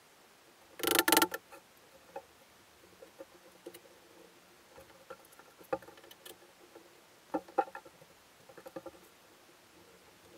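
Maple rack parts and metal bar clamps being handled as the joined assembly is clamped: a short loud clatter about a second in, then scattered light knocks and clicks as the clamps are set.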